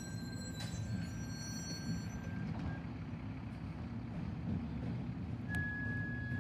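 Garbage truck's diesel engine running down the street, a steady low rumble. A thin, steady high tone sounds over it for the first two seconds or so and comes back about five and a half seconds in.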